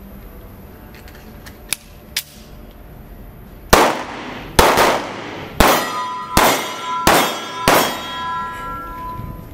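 Six pistol shots fired one after another, slowing slightly from under a second apart, each echoing in an indoor firing range and leaving a ringing tone behind. Two light metallic clicks of the pistol being handled come a couple of seconds before the first shot.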